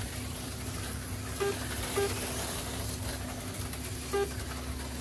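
HO-scale slot cars with small can motors running around the track, a steady high whirring hiss over a low hum. Three short pitched blips cut through it, twice close together and once near the end.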